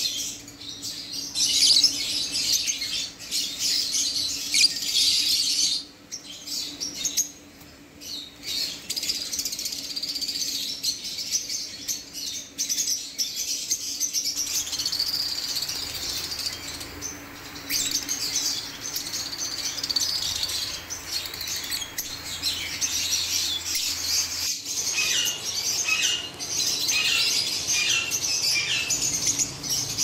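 Caged lovebirds chirping and chattering continuously with high, shrill chirps; near the end the chirps come as separate short calls.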